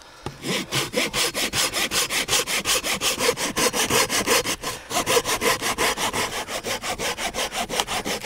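Hand saw cutting through a dry, weathered dead branch in quick, even back-and-forth strokes. The strokes start about half a second in and pause briefly near the middle.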